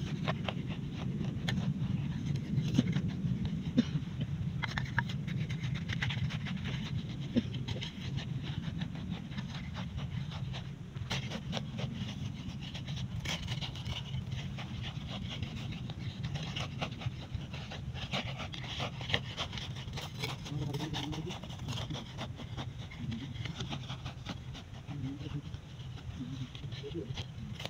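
A ramba, a small hand hoe, chopping and scraping dry, clumpy soil between seedlings: irregular short knocks and gritty scrapes over a steady low rumble.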